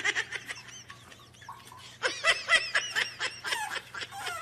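High-pitched laughter in rapid runs of giggles: a burst right at the start, a few faint ones, then a louder stretch of quick giggles from about two seconds in.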